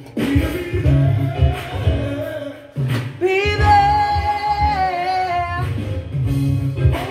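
A song playing: a sung melody over a pulsing bass beat, with one long held note in the middle.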